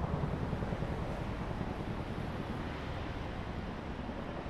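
Steady low rumble of city road traffic, a continuous hum of passing vehicles with no single event standing out, easing slightly in loudness.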